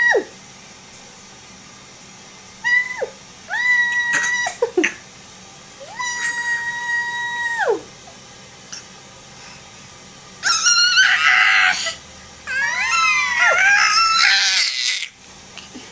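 A baby's high-pitched squeals: several short and held squeals at a steady pitch, then two longer, louder, rasping screeches in the second half.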